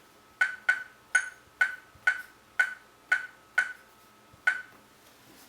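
Laser projection keyboard giving its electronic click for each registered keystroke. Nine short, sharp clicks with a slight ring come about two a second and stop about a second before the end.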